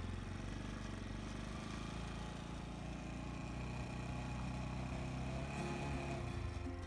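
Motorcycle engine running steadily at low revs as the bike rides along.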